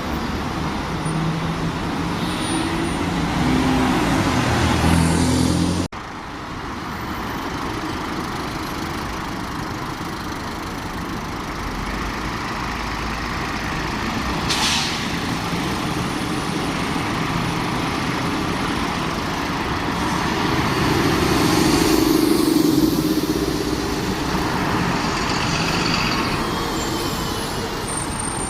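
Diesel bus engines running, with a short sharp hiss of air about fifteen seconds in. The sound changes abruptly about six seconds in, and an engine swells louder a little past twenty seconds.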